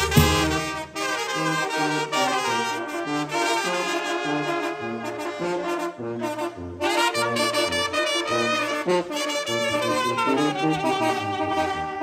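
Several trumpets playing a chilena together in harmony, with a lower bass part moving underneath. The phrase breaks off briefly about halfway through, then picks up again.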